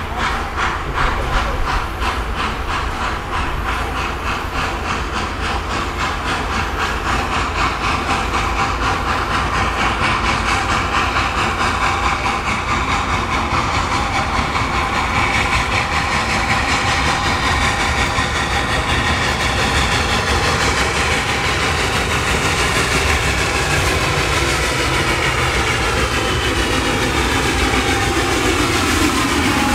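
Wood-burning Finnish Tk3 'Pikku-Jumbo' steam locomotive approaching with a train, its exhaust chuffing in a rapid, steady rhythm that slowly grows louder as it draws near.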